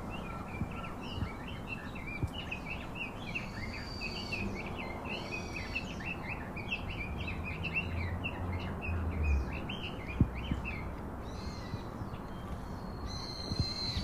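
Birds chirping in a quick, continuous run of short high calls over steady low background noise, with a single sharp click about ten seconds in.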